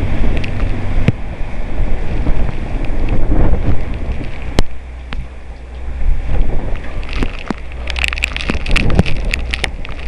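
Severe downburst wind gusting hard against the microphone, a heavy buffeting rumble that swells and eases. From about seven seconds in, a rapid flurry of sharp ticks and taps joins it.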